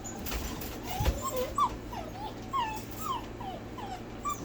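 Bordoodle puppies whimpering and yipping: a string of short, high whines that fall in pitch, several a second, with a couple of knocks in the first second.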